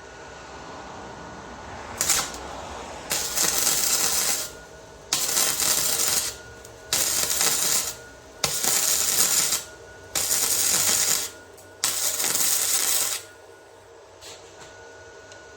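Arc welding on a turbo flange, laid down in six short welds of about a second each that start and stop abruptly.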